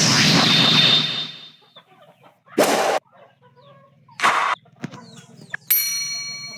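Chickens squawking in several short, loud, harsh bursts, the first lasting about a second. Near the end a ringing tone starts and slowly fades.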